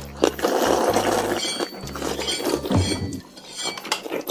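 Chopsticks clinking and scraping against porcelain bowls of rice porridge while it is eaten, with slurping from a bowl held to the mouth.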